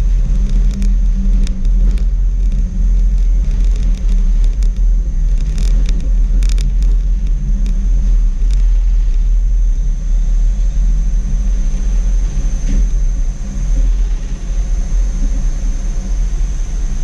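Schindler Waggon Be 4/6 tram heard from inside the car while under way: a steady low rumble from the wheels and running gear, with scattered clicks and rattles and a thin high whine that grows stronger in the second half.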